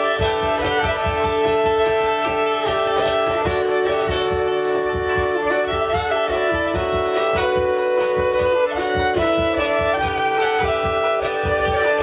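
Live folk band playing an instrumental passage: a fiddle melody over a hurdy-gurdy's steady drone, with a cajon beat and acoustic guitar underneath.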